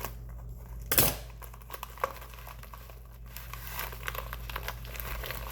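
Shipping packaging crinkling and tearing as it is pulled open by hand, in irregular rustles and small snaps, with one sharp, loud crackle about a second in.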